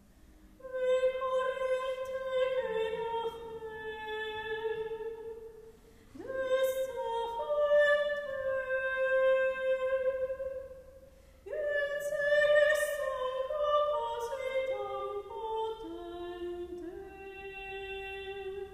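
A soprano sings a slow, sustained melody in three long phrases, with short pauses for breath between them.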